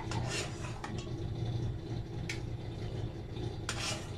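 Steel ladle moving through hot chai in an aluminium saucepan, scraping against the pan a few times in short strokes, over a steady low hum.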